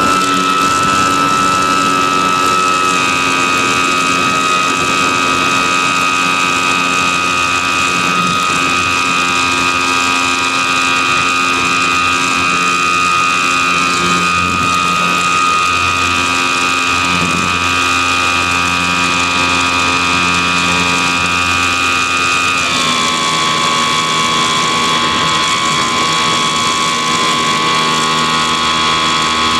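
E-flite Apprentice S 15e RC plane in flight, heard from on board: its brushless electric motor and propeller whine steadily. About two-thirds of the way through, the pitch shifts suddenly.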